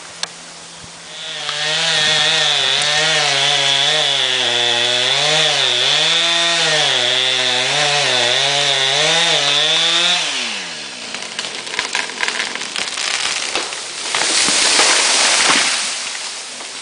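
Chainsaw running at full throttle cutting into a tree, its pitch dipping and recovering under load for about nine seconds, then throttled back so the engine winds down. Scattered wood cracks follow, then a louder rushing crash of the tree falling through branches.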